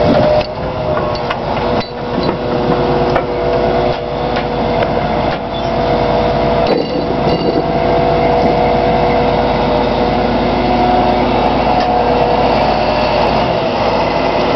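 Truck-mounted crane's engine and hydraulics running steadily with a held whine while it lowers a crawler dozer on chains, with a few sharp metal knocks and clanks.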